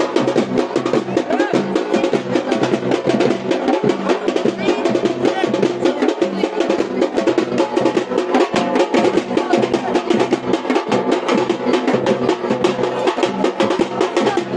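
Drums played in a fast, continuous rhythm of rapid strikes, accompanying the palanquin dance.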